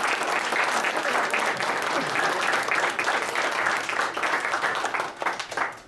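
A small audience applauding with hand claps, thinning out and stopping near the end.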